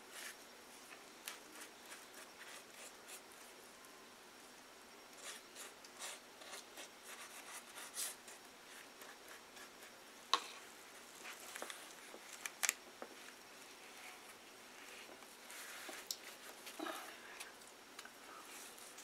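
Faint handling sounds of gluing paper towel onto cardboard: a glue brush dabbing and wiping, paper towel rustling, and scattered soft clicks, with a couple of sharper taps about halfway through.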